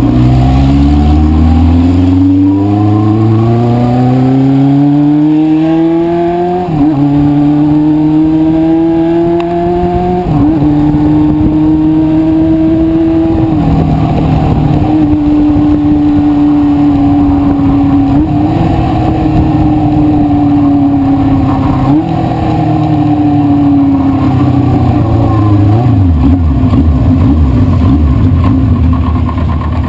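1973 Honda CB500 Four's air-cooled inline four-cylinder engine pulling up through the gears, its pitch climbing and then dropping at each shift, settling into a steady cruise, and easing off near the end.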